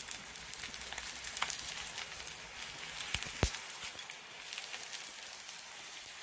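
Egg frying in oil in a stainless steel skillet: a steady sizzle with fine crackling, and one sharp click a little past halfway.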